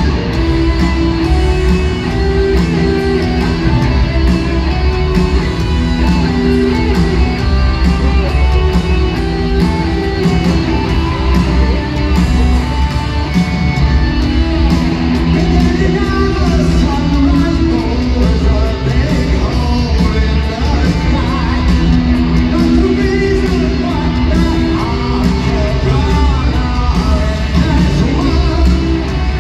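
A rock band playing live through an arena PA: distorted electric guitars, bass and drums, with singing, recorded from among the audience.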